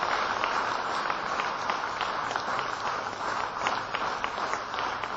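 Audience applauding steadily, many hands clapping together; it cuts off suddenly at the end.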